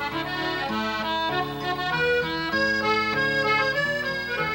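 Instrumental background music: a tune played over held chords.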